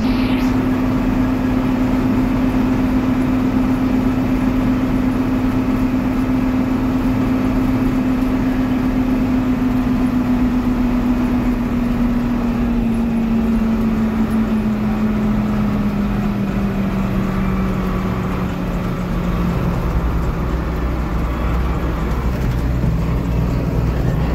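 John Deere 4430 tractor's six-cylinder turbo diesel running at road speed, heard from inside the cab: a steady drone with a clear hum that slowly drops in pitch in the second half as the revs ease off.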